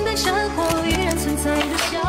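Background music: a pop song whose melody moves in held, wavering notes over a steady bass line.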